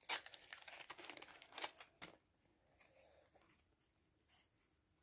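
Wax paper wrapper of a 1989 Fleer baseball card pack crinkling and tearing as the pack is opened, dense for about two seconds and loudest at the start, then only faint rustles.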